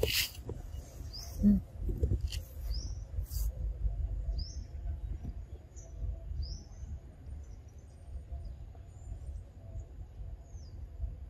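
A small bird chirping repeatedly, short high chirps that fall in pitch, about one a second, over a steady low rumble. A few sharp clicks come in the first few seconds, and a short low sound about a second and a half in is the loudest moment.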